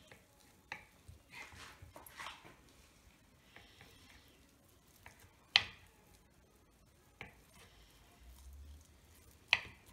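Kitchen knife slicing through a soft block of fresh paneer and knocking down onto a wooden cutting board: soft cutting and scraping early on, then a few sharp knocks, the two loudest about halfway through and near the end.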